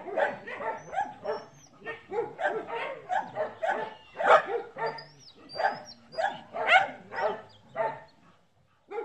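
Dog barking in a steady run of short barks, about two to three a second, with a brief pause near the end.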